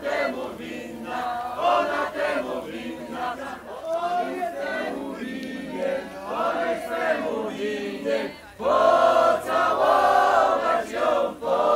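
A group of people singing together without instruments, in held, sliding phrases, louder from about nine seconds in.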